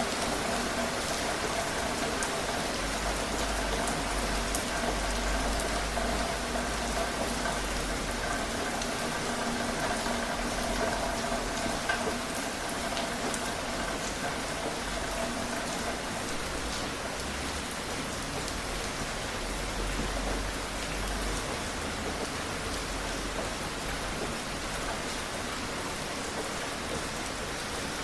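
Steady rain falling on a surface, a constant hiss with individual drops ticking through it.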